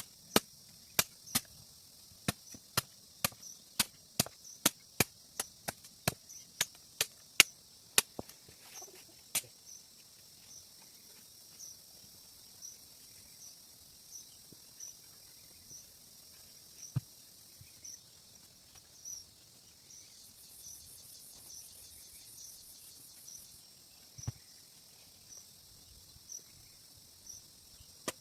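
Sharp strikes on wood, about two a second for the first eight seconds and then only a few scattered knocks, as a small wooden bench is built. Insects chirp steadily in the background, with a brief fast buzz near the middle.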